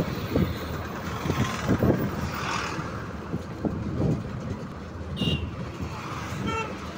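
Road noise heard from a moving vehicle in traffic: a steady low engine and road rumble with irregular thumps. A brief high beep comes about five seconds in, and a short vehicle horn toot near the end.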